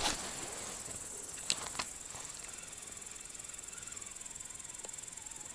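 Steady, high-pitched insect chirring, with two short clicks about a second and a half in.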